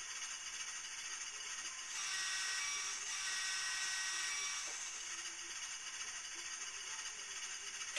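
HO-scale BLI Trackmobile's DCC sound decoder playing a diesel engine idling through the model's tiny speaker, thin and rattly. It grows a little louder, with a faint whine, for a few seconds in the middle.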